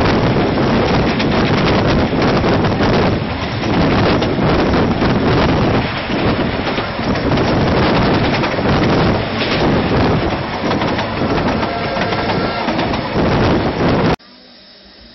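Heavy wind buffeting on the microphone over the running noise of a moving narrow-gauge steam train, in uneven gusts. About fourteen seconds in it cuts off abruptly to a much quieter hiss.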